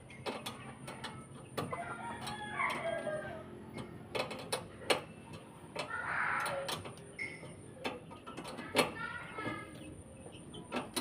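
Chickens clucking, with a call that bends in pitch like a rooster's crow, over irregular sharp clicks and taps.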